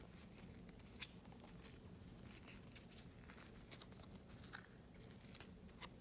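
Faint clicks and rustles of glossy Topps Chrome baseball cards being shuffled and slid against one another in gloved hands.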